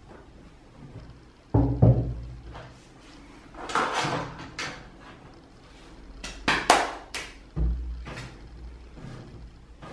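Lumps of clay set down heavily on a wooden workbench: two dull thuds about six seconds apart, with rustling and scraping handling noises between them.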